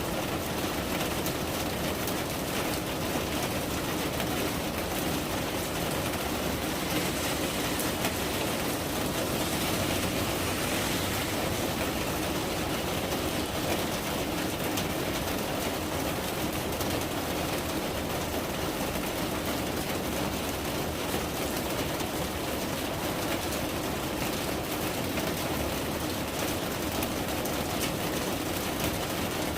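Steady rainfall: an even hiss with scattered faint drop ticks.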